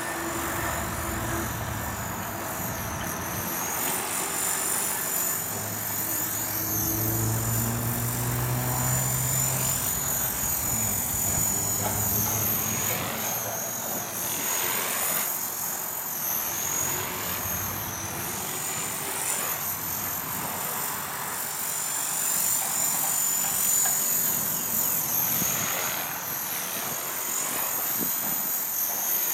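Align T-Rex 450 electric RC helicopter in flight: a steady high-pitched whine with rotor noise, wavering a little in pitch and sweeping in tone as the helicopter manoeuvres.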